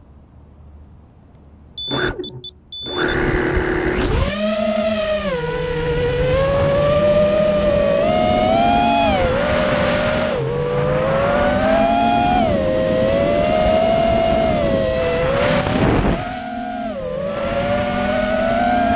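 Racing quadcopter's brushless motors and RK5051 propellers whining in flight, the pitch rising and falling with the throttle, with a brief drop near the end. A few short electronic beeps come just before the motors spin up. The builder says the props need balancing.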